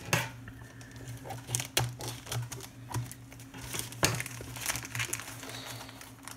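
Plastic postal mailer bag crinkling and rustling in irregular bursts as it is handled and its flap pulled back by hand, with a faint steady low hum underneath.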